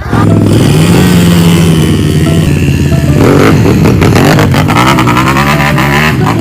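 A motorcycle engine running and revving: steady at first, then rising and falling in pitch from about three seconds in.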